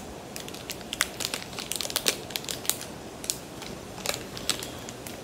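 Plastic ice cream wrapper crinkling and crackling as it is torn open and peeled back from the bar, in quick, irregular crackles.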